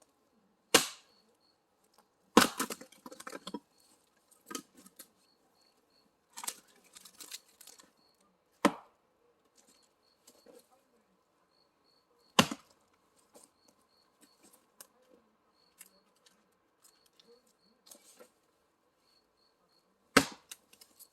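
Axe chopping firewood: loud, sharp strikes at irregular intervals, about six or seven over twenty seconds. Some strikes are followed by a short clatter of wood.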